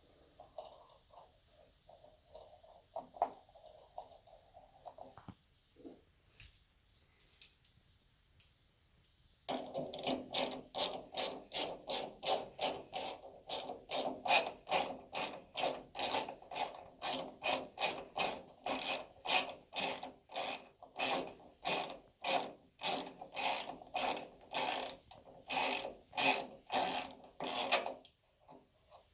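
A hand ratchet clicking in an even back-and-forth rhythm, about two strokes a second, fastening the water heater's thermostat cover back on. Before it come a few faint knocks and clicks of handling.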